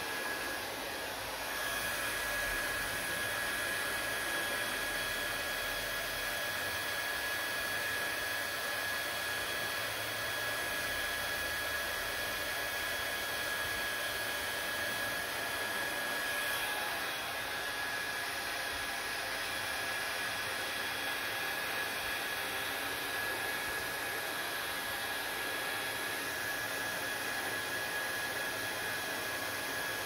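Handheld hair dryer running steadily as it blows wet hair dry: a constant rush of air with a thin, steady whine from its motor.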